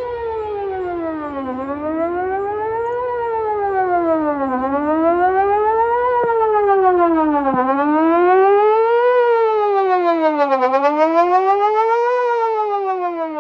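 Whelen 4008 electronic outdoor warning siren sounding a wail, its pitch sliding smoothly up and down about once every three seconds. It is heard from a distance, and its loudness wavers quickly near the end.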